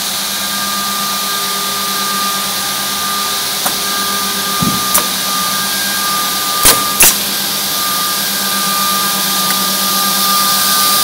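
Door edge banding machine running, a steady motor hum with a high hiss. A few sharp clicks cut in, the loudest two in quick succession just past the middle.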